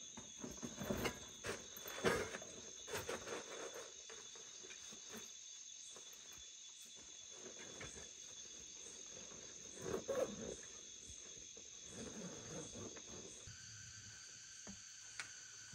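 Steady, high-pitched insect calling, with irregular rustling and knocks as a backpack and a plastic bag are handled and packed. The handling noise is loudest in the first few seconds and again about ten seconds in. Near the end the insect tones shift to a different pitch.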